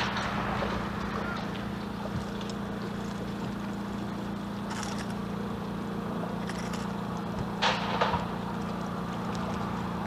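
Steady hum of a bow-mounted electric trolling motor, with a few brief handling noises about three quarters of the way through as a small bass is unhooked.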